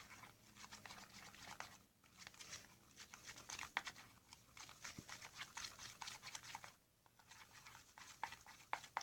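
Faint sticky crackling and squishing of glue and shaving cream being stirred together for fluffy slime, with a brief pause about seven seconds in.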